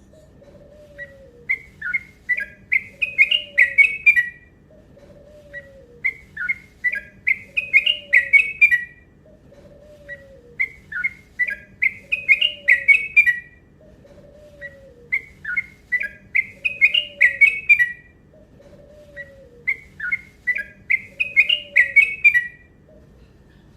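Yellow-vented bulbul (cucak trucuk) singing its long, rapid song five times, about every four and a half seconds. Each phrase is a quick run of notes that climbs in pitch and grows louder over about three seconds.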